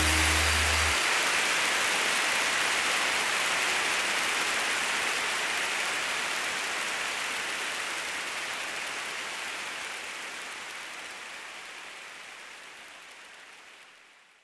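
The last held chord of the live band stops about a second in, leaving a congregation's applause that fades out gradually to near silence.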